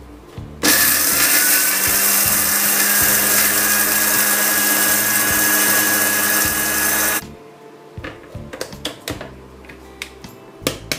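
Electric spice grinder running for about six seconds, grinding dry chilies with a little salt. It starts and stops abruptly, with a steady high whine over the grinding noise. A few light clicks and knocks follow near the end.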